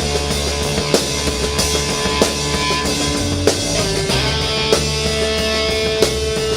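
Heavy rock music: electric guitar holding long notes over a steady bass and a drum kit, with a hard drum hit about every second and a quarter.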